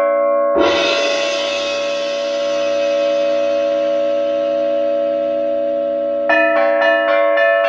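Hand-struck metal percussion: tuned bells ring on, and about half a second in a crash like a cymbal or gong washes over them and slowly fades. About six seconds in, a quick run of bell strikes starts, several a second, on different pitches.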